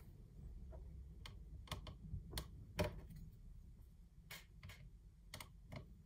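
Light, sharp clicks and taps of small plastic parts and a screwdriver handled on a DJI Mavic Air drone's body during reassembly: about ten irregular clicks, the loudest just under three seconds in.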